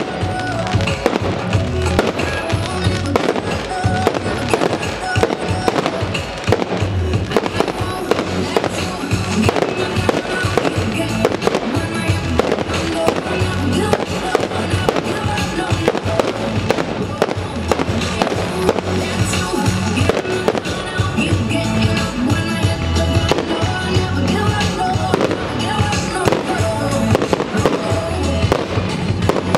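Fireworks display: a steady barrage of aerial shell bursts and crackle, with music playing underneath.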